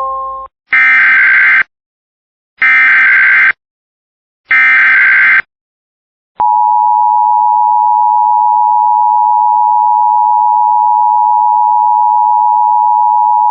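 Emergency Alert System broadcast alert: three SAME header data bursts of about a second each, evenly spaced, then the EAS two-tone attention signal (853 and 960 Hz) starts about six seconds in and holds steady. The tail of a chime fades out in the first half-second.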